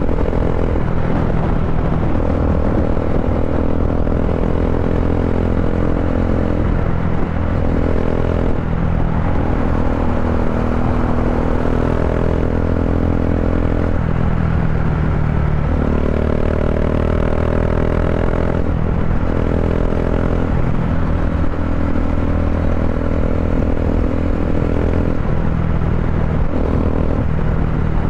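Bajaj Dominar 400's single-cylinder engine cruising at steady highway speed through an Akrapovic-style slip-on muffler, with the catalytic converter replaced by a resonator: a steady, unbroken exhaust drone.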